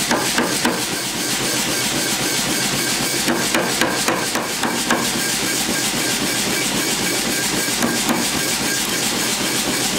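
Power hammer striking a hand-held top tool on a bar of hot steel, with runs of rapid blows near the start, in the middle and once more near the end, over the steady running noise of the machine.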